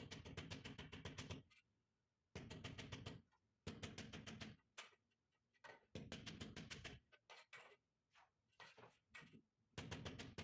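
White rubber mallet tapping a white marble stair tread down into its mortar bed, in several quick runs of taps, about eight to ten a second, with short pauses and a few single taps between.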